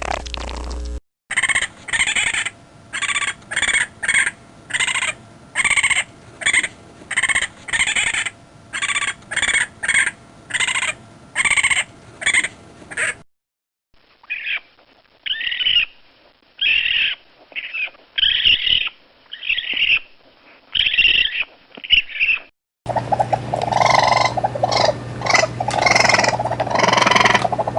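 Raccoon screams: runs of short, sharp calls, one or two a second, in three separate recordings cut together, the last with a steady low hum under it.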